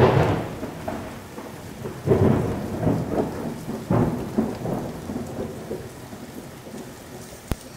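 Low rumbling that swells three times, about two seconds apart, each swell fading slowly and the whole dying away by the last couple of seconds. A single sharp click comes near the end.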